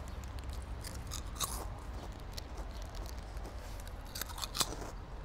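Scattered soft crunches and clicks over a low steady rumble, in two clusters: one about a second and a half in, another about four and a half seconds in.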